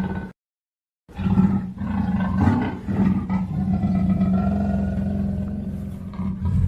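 Recorded roar sound effects: one roar cuts off in the first half-second, and after a short silent gap a long, deep roar starts about a second in and carries on.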